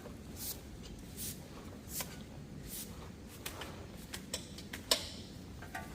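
Scattered light clicks and knocks of metal parts and tools being handled during brake work, with a few soft scraping sounds and one sharper click near the end.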